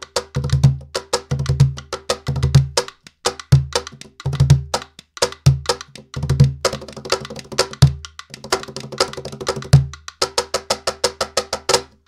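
Latin percussion playing a steady rhythm: quick, sharp wooden clicks over low drum strokes, with no singing.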